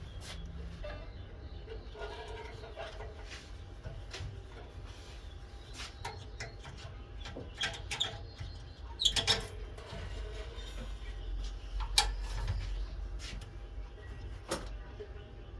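Scattered light clicks and knocks, a cluster of them over a second or so about nine seconds in and the loudest single click about twelve seconds in, over a low steady hum.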